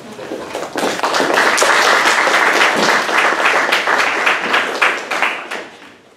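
Audience applauding: the clapping builds up about a second in, holds, then dies away near the end.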